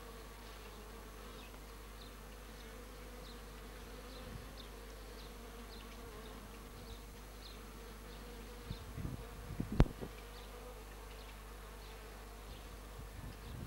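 Honeybees buzzing at the hive entrance, a steady hum. About ten seconds in there are a few low thumps and one sharp knock.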